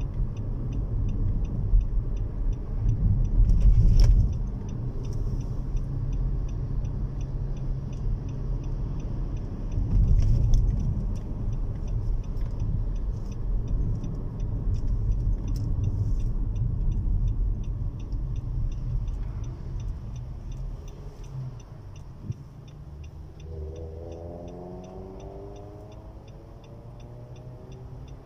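Car driving, heard from inside the cabin: a steady low rumble of tyres and engine that drops to a quieter level in the last third. A faint whine comes in near the end.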